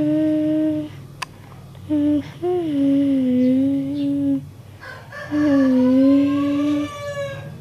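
A person humming a slow tune in long held notes, three phrases with gentle dips in pitch between them.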